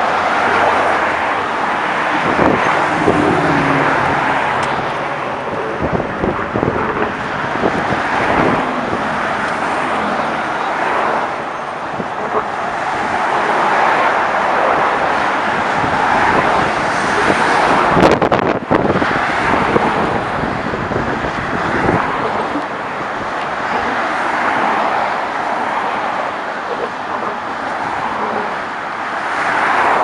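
Steady stream of cars and trucks passing close by on a busy multi-lane bridge roadway: a continuous rush of tyres and engines that swells and fades as each vehicle goes by. A single sharp knock sounds partway through.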